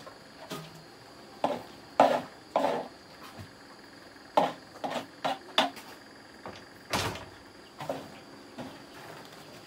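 Irregular rustles, scrapes and dull knocks of chopped green fodder being scooped with a plastic scoop and dropped by the handful into a large metal pot, about a dozen short sounds in uneven bursts.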